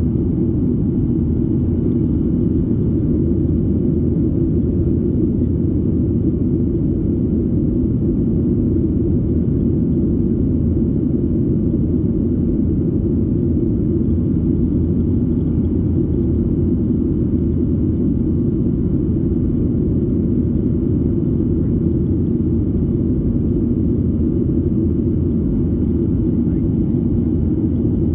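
Steady low drone inside the passenger cabin of a Boeing 737-800 in flight: the CFM56-7B engines and the rush of air past the fuselage, even and unchanging.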